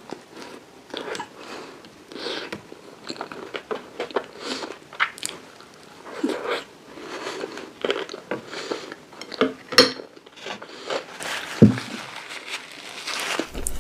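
Close-miked eating of chocolate caramel profiteroles: irregular crunching bites and chewing, with a few sharper louder crunches toward the end.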